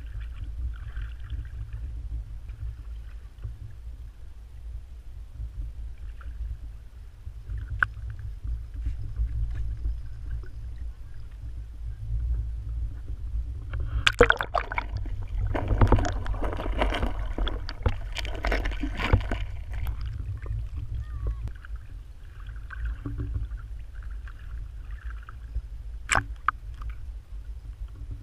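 Lake water sloshing and gurgling against a waterproof camera held at the surface beside a paddling dog, over a steady low rumble. About halfway through, a few seconds of louder splashing, with a couple of sharp clicks elsewhere.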